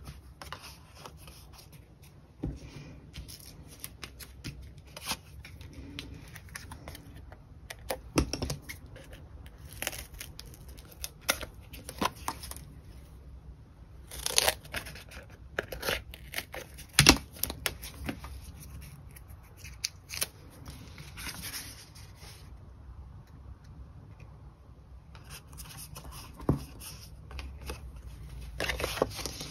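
Paper craft handling: cardstock and double-sided foam adhesive sheet being cut with scissors and handled, in scattered snips, rustles and small clicks.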